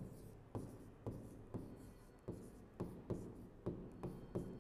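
Chalk writing on a chalkboard: a series of short taps and scratches as letters are written, about two strokes a second.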